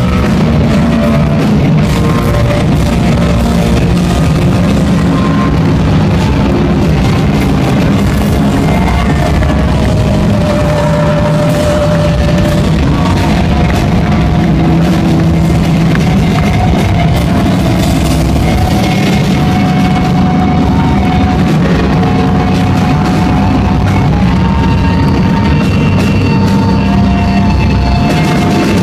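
Live hardcore punk band playing loud, without a break: distorted electric guitar and bass over drums.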